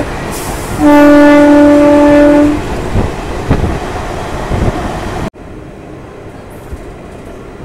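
A train horn sounds one steady, single-pitched blast of about two seconds over the rumble and clatter of a moving passenger train, heard from an open carriage doorway. A few seconds later the sound cuts off suddenly to a quieter, steady running noise of the train.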